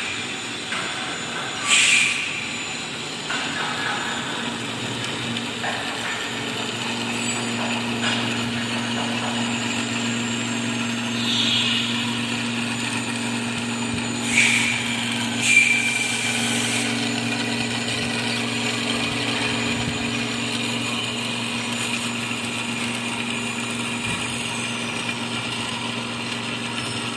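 Semi-automatic metal-cutting band saw machine running with a steady hum, broken by a few short hissing bursts.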